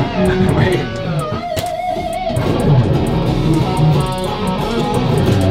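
Guitar-led music, electric guitar with bass underneath, with a note held for under a second near the middle.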